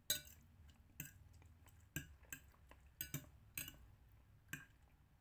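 Metal fork clinking against a ceramic plate while eating noodles: about eight sharp clicks at irregular intervals, roughly one a second.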